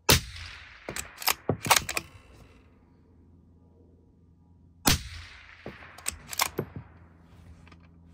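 Two suppressed shots from a 6mm ARC bolt-action rifle with an Otter Creek Labs Hydrogen-S suppressor, about five seconds apart, each with a short echoing tail. After each shot come several sharp metallic clicks of the bolt being cycled.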